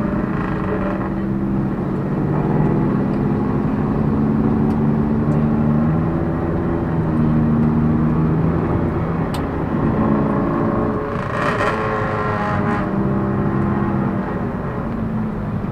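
Toyota Prius ZVW30's 2ZR-FXE four-cylinder engine running at low speed, heard from inside the car's cabin, with its pitch shifting up and down. A brief rush of noise rises and falls about eleven seconds in.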